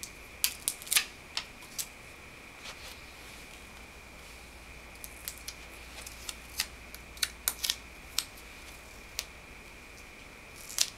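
Scattered sharp clicks and crinkles from adhesive electrode patches and snap-on electrode leads being handled and attached to a leg. The clicks bunch in the first couple of seconds and again in the middle, with a pair near the end, over a faint steady high tone.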